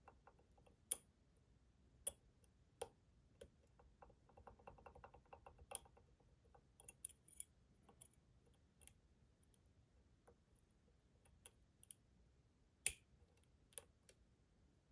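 Lock picking in a Schlage Primus Everest pin-tumbler lock: the pick and tension tool tick and click against the pins in the keyway. The clicks come at irregular times, with a quick run of tiny ticks a few seconds in.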